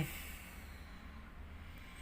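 Faint steady low hum with light hiss: background room tone with no distinct event.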